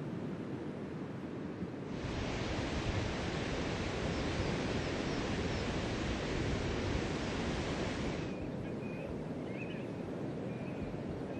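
Steady noise of surf and wind on a seashore, louder and hissier from about two seconds in until about eight seconds, then settling back. In the last few seconds faint, short, high chirps come and go over the surf.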